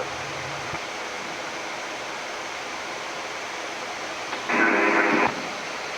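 Steady rushing air noise on a Boeing 787-10 flight deck in descent. About four and a half seconds in comes a brief, roughly one-second burst of static over the cockpit radio.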